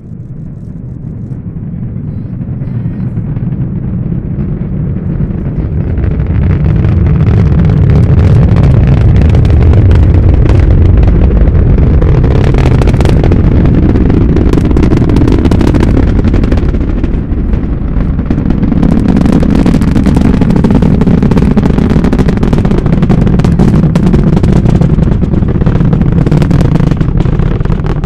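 SpaceX Falcon Heavy rocket's 27 Merlin engines at liftoff, heard from about three miles away: a deep rumble that builds over the first several seconds into a loud, sustained rumble laced with sharp crackles. It eases slightly about two-thirds through, then swells again.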